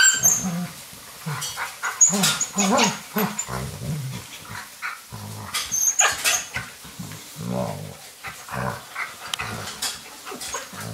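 Alaskan Malamute puppies and a young adult malamute play-fighting. Irregular play growls come with short, higher yelps now and then.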